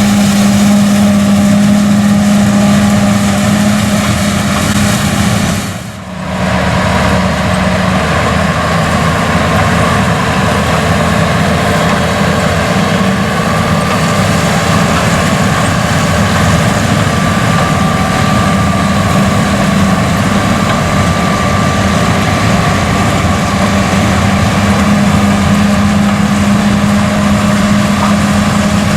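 Case IH 215 Magnum tractor and the BOB 46 pull-type bean combine it powers, running steadily with a constant low engine drone. The sound briefly drops about six seconds in, then carries on as before.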